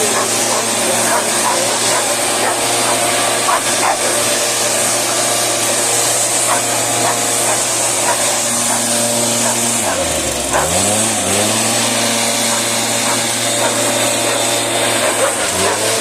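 Two-stroke engine of a motorized backpack mist-blower sprayer running steadily at high speed, with the hiss of the blower air. About ten seconds in, the revs drop sharply and climb back up.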